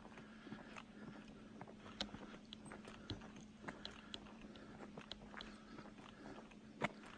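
Faint footsteps on a paved road: irregular small crunches and clicks roughly every half second, one sharper click near the end, over a faint steady hum.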